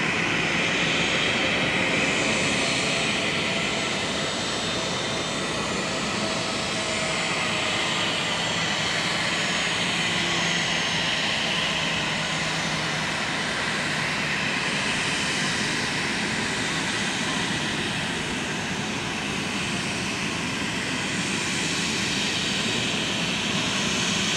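Boeing 737-800's CFM56-7B jet engines running at low power as the airliner rolls slowly along the runway after landing: a steady jet whine and rush.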